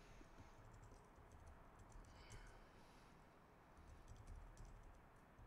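Faint typing on a computer keyboard, a few short runs of keystrokes.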